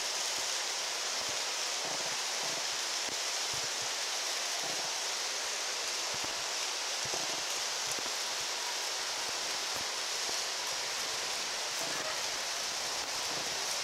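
Steady outdoor background hiss with no voices, strongest in the high range, with a few faint ticks scattered through it.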